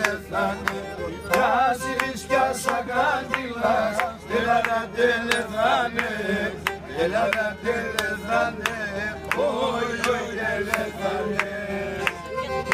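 Pontic folk music at a table gathering: men singing an ornamented melody over a bowed string instrument, with a steady beat of sharp claps.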